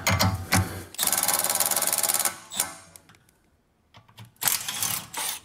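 Handheld cordless power tool spinning a bolt in two bursts of rapid rattling: a long burst about a second in and a shorter one near the end, undoing the rear sway bar's mounting bolts.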